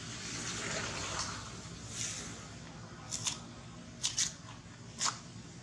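A macaque tearing and biting a fibrous coconut husk: a rustling tear in the first second or so, then five sharp snaps in three quick groups, two, two and one, over the second half.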